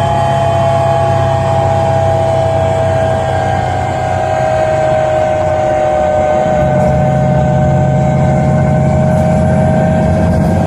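Iveco Cursor 8 CNG six-cylinder engine and Voith automatic gearbox of a Solaris Urbino 12 city bus running under way, heard inside the passenger cabin: a low drone with a whine that slowly falls in pitch, the drone changing about two-thirds of the way through.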